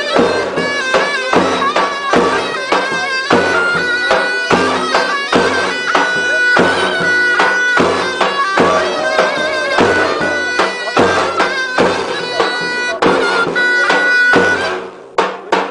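Davul and zurna playing halay dance music: a loud, reedy zurna melody over regular stick strokes on the big davul drum. The tune breaks off near the end, leaving a couple of drum strokes.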